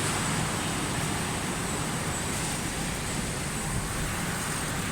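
Hairline finishing machines for stainless steel sheet running, giving a steady, even machine noise with a low hum underneath.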